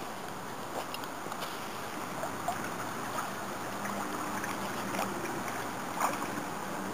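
Steady rush of running water, with scattered small clicks and a faint low hum that comes in about four seconds in.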